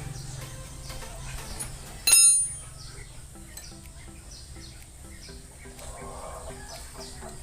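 Background music with a steady repeating beat. About two seconds in comes a single sharp clang that rings briefly, the loudest sound here.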